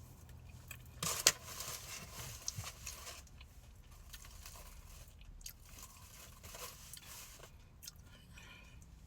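Close-up chewing and biting of a deep-fried crab cake, with crunching from the fried crust. A sharp click comes about a second in, then a stretch of crisp bites, then quieter chewing with small clicks.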